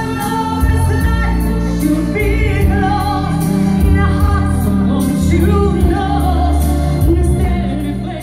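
Live band playing a pop song, with two female singers over bass, keyboards and drums; the music fades out near the end.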